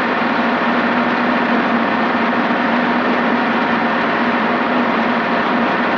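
Robinson helicopter in flight, heard from inside the cockpit: a steady drone of engine and main rotor with a constant low hum running evenly through it.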